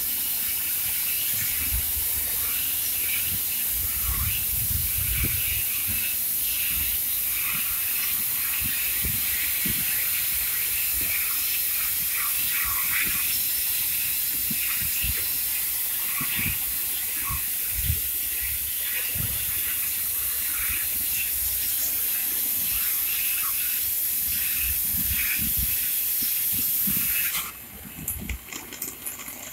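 CNC profile cutting machine's torch cutting metal: a steady loud hiss with a running crackle, which cuts off suddenly near the end.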